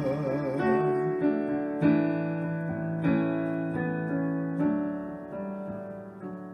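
Piano playing the closing chords of a hymn accompaniment after the singing stops, a chord struck every second or so and the last one dying away.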